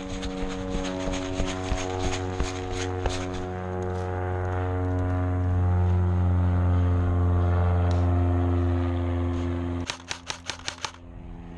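A steady machine-like drone of several tones that shift slowly in pitch, swelling in the middle and cutting off suddenly about ten seconds in. Airsoft gun shots snap over it during the first few seconds, and a quick string of about seven shots follows right after the drone stops.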